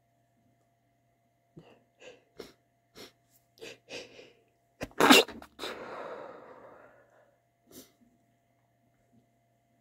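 A person's sneeze build-up: a run of short, catching inhalations growing stronger, then one loud sneeze about five seconds in. The sneeze trails off into a breathy exhale that fades over a second or so, and a short sniff-like breath comes near the end.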